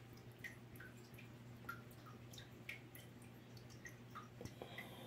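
Near silence: faint, irregular water drips and small plinks around an aquarium, over a low steady hum.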